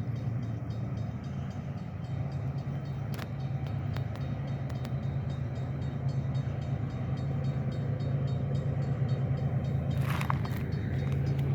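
Train running past, a steady low rumble with a few faint clicks.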